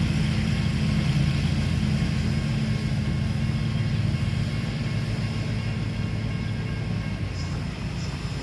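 Diesel locomotive engines of a heavy grain train running under load at low speed: a steady low drone that eases off a little toward the end.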